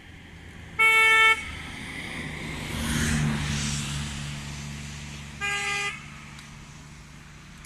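A vehicle horn honks twice: a short loud blast about a second in, then a quieter, lower-pitched one about four and a half seconds later. Between them a motor vehicle passes by, its engine and road noise growing louder toward the middle and then fading.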